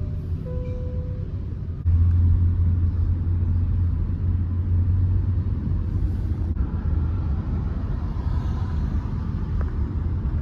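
Steady low rumble of a car on the move, heard from inside the vehicle. A brief single chime tone sounds about half a second in.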